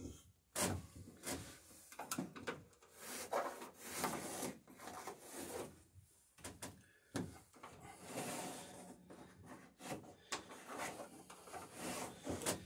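A pencil held flat on the wooden bottom planking, scraping along as it scribes the curve of the boat's bottom onto the side of a wooden centerboard box, with hands rubbing on the wood and a few light knocks. The scraping comes in short, uneven strokes.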